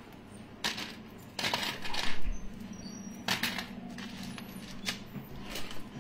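Small metal jewellery pieces clinking and rattling as they are handled, in several short bursts. The longest and loudest burst comes about two seconds in.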